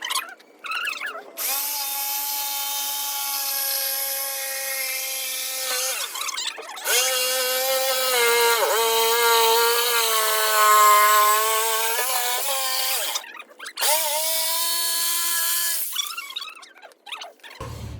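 Handheld electric power tool running in three long runs with short breaks between, its whine dipping and rising in pitch.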